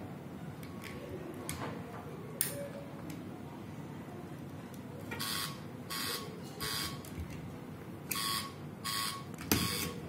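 LEGO Mindstorms EV3 brick sounding its alarm buzz: six short buzzes in two groups of three, starting about five seconds in, as the protected object is disturbed and the sensors trip the alarm. A sharp click of LEGO parts being handled comes earlier.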